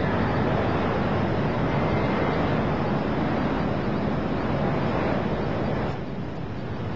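Steady rushing noise of the diving venue's background ambience, with no distinct events, dropping a little about six seconds in.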